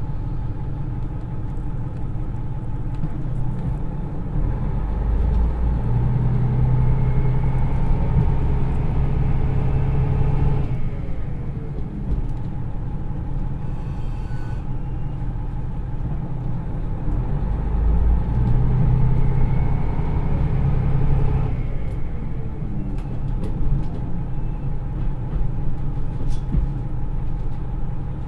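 Cabin sound of a KiHa 110 diesel railcar with its turbocharged Niigata DMF13HZA diesel engine: the engine pulls under power twice, from about 5 s to about 10 s and again from about 18 s to about 21 s in, each time cutting off abruptly with its revs falling away, and the train runs on with steady rolling rumble in between.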